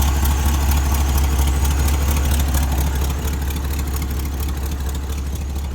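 IH 1600 truck's carburetted engine idling steadily, quiet on the side where the exhaust gasket has just been fixed.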